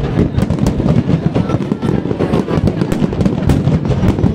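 Fireworks bursting in rapid, continuous succession: a dense run of bangs and crackles with no gap.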